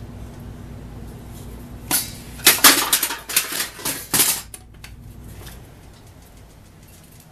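Plastic one-handed bar clamp being released and handled, with a quick run of sharp clicks and clatters about two seconds in that stop after about two and a half seconds.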